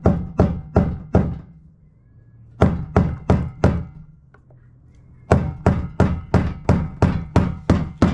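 Heavy hammer blows on metal, about three a second, in three runs with short pauses between them, during an engine teardown.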